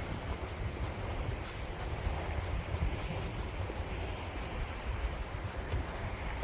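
Blizzard wind buffeting the microphone: a steady, rushing noise with a low, fluttering rumble.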